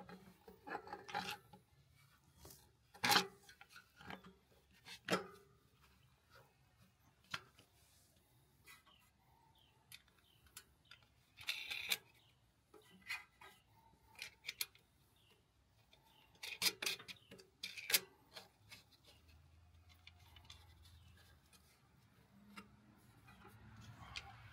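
Scattered clicks, taps and light scraping of small engine parts and hand tools being handled and fitted as a Kohler Command Pro engine is reassembled; the engine is not running. The sharpest click comes about three seconds in.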